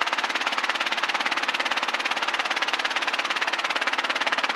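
Robinson R22 helicopter rotor and engine noise picked up by an open headset microphone: a loud, fast, even pulsing over a steady hum.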